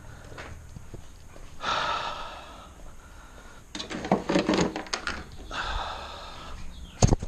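Two heavy, breathy exhales from a man straining, with a run of plastic clicks and rattles between them as interior trim pieces are handled. A sharp knock near the end.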